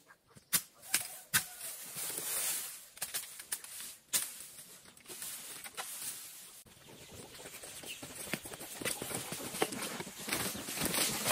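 Bamboo leaves and undergrowth rustling as a person pushes through and handles bamboo, with several sharp cracks in the first few seconds and a denser, crackling rustle in the second half.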